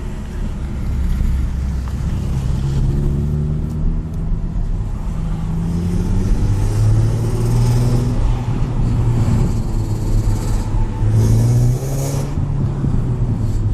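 Car engine and exhaust running, the revs rising and falling a few times, on a car with an exhaust noise problem.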